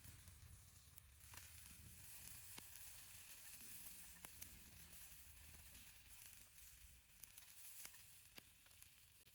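Faint sizzling hiss with scattered sharp crackles, from food cooking over a wood fire.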